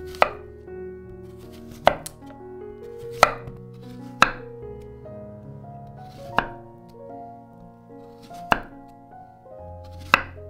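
Chef's knife slicing zucchini into rounds on a wooden cutting board: seven separate chops at uneven intervals of one to two seconds, each a sharp knock of the blade on the board. Soft background music plays under the chops.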